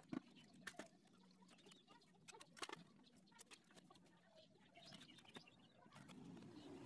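Near silence broken by a few faint, sharp clicks and taps, the clearest just after the start and a small cluster about two and a half seconds in.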